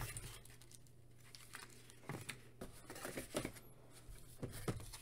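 Quiet rustling of cardboard box packaging and paper inserts being handled, with a scattering of light taps and clicks.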